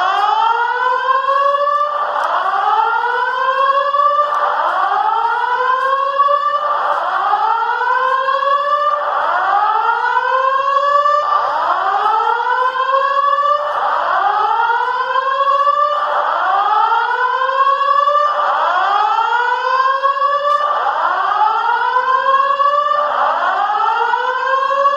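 Simplex TrueAlert fire alarm speaker sounding a whoop evacuation tone: a rising sweep that repeats about once a second without pause.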